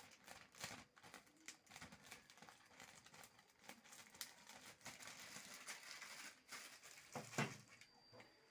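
Faint crinkling and rustling of a thin plastic bag being handled, in scattered small crackles, with a slightly louder rustle near the end.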